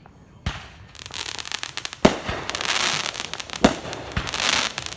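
Fireworks going off: a bang about half a second in, then dense crackling, with sharper booms about two seconds in and twice more near the end.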